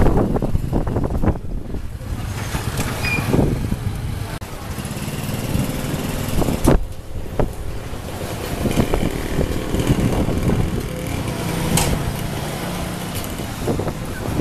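A motor vehicle engine running, a low steady rumble, with two sharp knocks, one about halfway through and one near the end.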